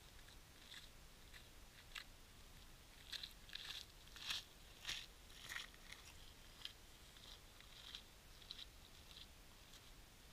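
A hiker's footsteps crunching on a stony, partly frosted hill path. Irregular steps get louder and are loudest about four to six seconds in as the walker passes close, then fade to fainter crunches.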